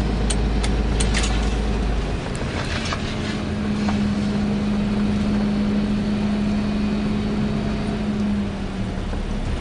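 A vehicle heard from inside the cabin while driving: a steady engine and road rumble with a low, even hum through the middle.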